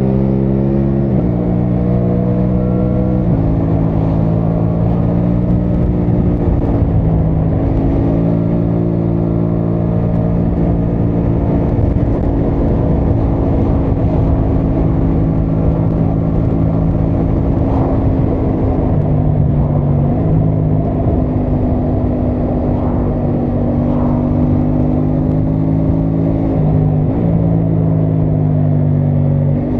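Aprilia Tuono 660 Factory's parallel-twin engine running under way. Its note steps down and back up several times, with short changes a little after the start, about three seconds in, around nineteen to twenty seconds, and again near twenty-seven seconds.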